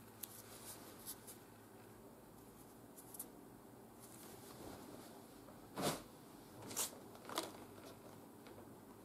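Quiet handling sounds of cotton fabric being folded, with a few light ticks. Three sharper knocks and crackles come about six to seven and a half seconds in, the first the loudest, as a clear plastic package is handled.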